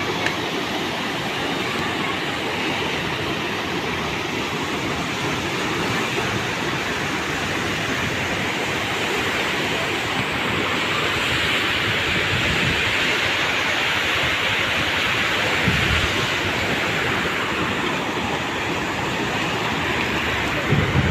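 Steady roar of rushing floodwater, with a few low bumps from wind on the microphone near the end.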